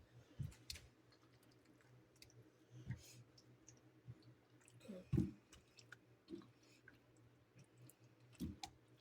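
Faint, irregular sticky clicks and squelches of jerk sauce being rubbed into raw chicken, with a slightly louder soft knock about five seconds in.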